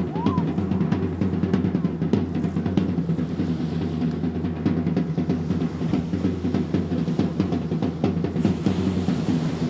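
Live percussion: drums played in a dense, fast, continuous rhythm.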